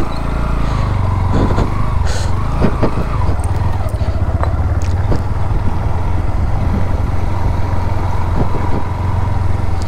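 Motorcycle engine running under way, its note rising and falling over the first few seconds, then holding steady. A few short knocks are heard as the bike rides over the rough track.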